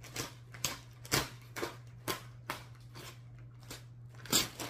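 Plastic mailer bag and wrapping crinkling in a string of short crackles as hands dig into the package and pull an item out, over a steady low hum.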